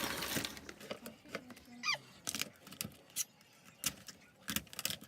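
Live lobsters being handled into a steamer pot: scattered clicks and taps of hard shell against the pot, with one short wavering squeak about two seconds in.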